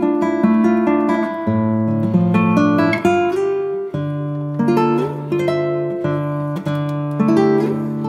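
Background music: an acoustic guitar piece played in plucked notes and strummed chords.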